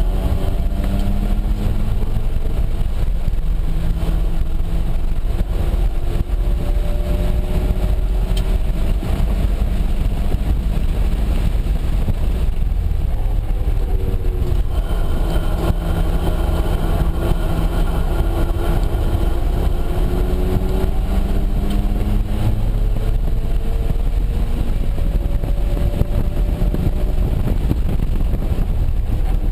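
Mazda RX-7's turbocharged rotary engine heard from inside the cabin under hard track driving. Its pitch climbs as it accelerates, falls away around the middle as the car slows, then climbs again in several pulls, over steady road and wind noise.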